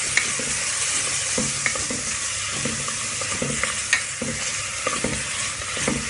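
Chopped onions, tomatoes and curry leaves sizzling in hot oil in a metal pot while a wooden spatula stirs them. The spatula scrapes and knocks against the pot every second or so over a steady sizzle.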